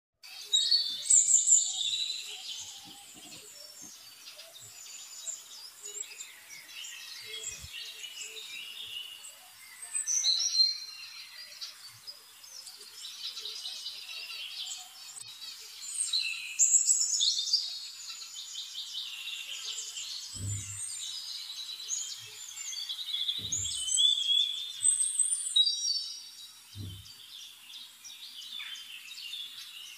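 Many birds chirping and singing, with dense overlapping chirps and trills that swell louder every few seconds. A few soft low thumps sound in the last third.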